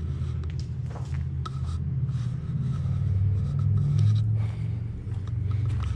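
Footsteps scuffing and crunching over dry twigs and gravel on an overgrown path, a scattering of irregular cracks and scrapes, over a steady low rumble.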